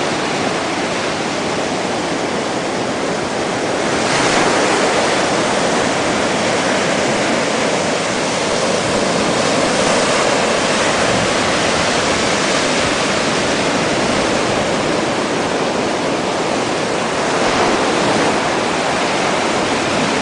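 Sea surf washing up a sandy beach: a steady rushing of small waves on the shore, swelling about four seconds in and again near the end.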